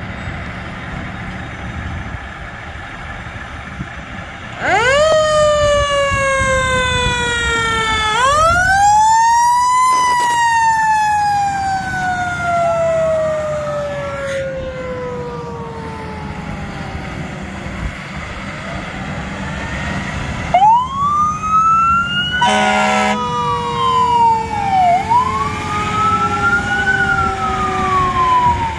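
Sirens of Rosenbauer Commander fire trucks responding to a call. A siren winds up sharply about five seconds in and again about eight seconds in, each time sliding slowly back down. In the last third a brief horn blast sounds and a siren wails up and down repeatedly, over a low engine rumble.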